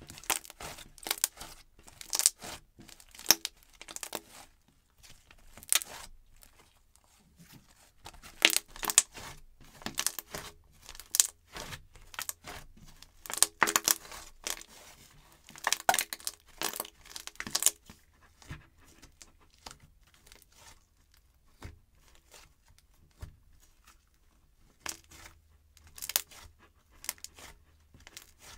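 Hands squishing, stretching and folding a soft, poppy slime, giving irregular runs of sticky crackles and little pops. The pops come thickest through the middle and thin out for a few seconds before picking up again near the end.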